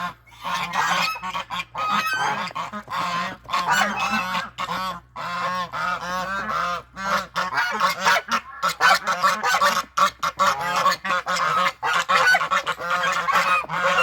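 A flock of domestic poultry calling continuously, with many overlapping calls and only brief pauses.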